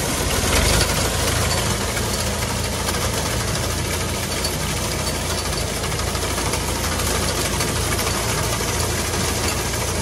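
Tractor's diesel engine running steadily under load as it drives a front-mounted wheat reaper through the crop. It swells briefly about half a second in.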